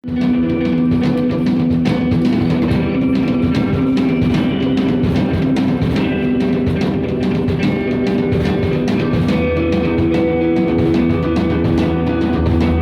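Rock music: a band with drum kit and guitars playing sustained notes, starting at full volume right at the outset.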